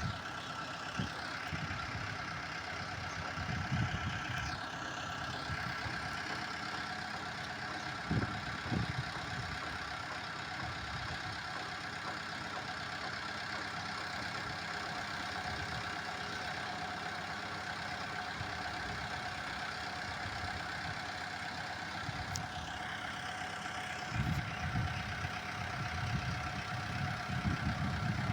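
JCB backhoe loader's diesel engine idling steadily, with a few brief louder low rumbles, one about eight seconds in and more near the end.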